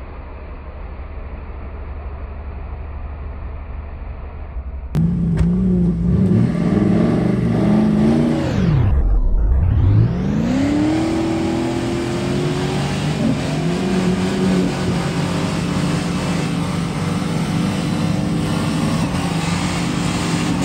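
Jeep SUV engine revving hard while its wheels spin in deep mud. It is quieter and duller for about the first five seconds, then jumps much louder to a high, steady engine note, with the pitch dropping sharply and climbing back about nine seconds in.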